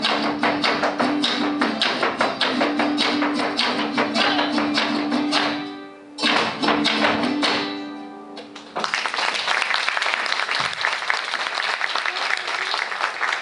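Son music from Tixtla, Guerrero, played on strummed strings, with a couple's zapateado footwork drumming on a hollow wooden tarima platform. The music fades out about six seconds in, a last short phrase rings and dies away, and applause starts about nine seconds in.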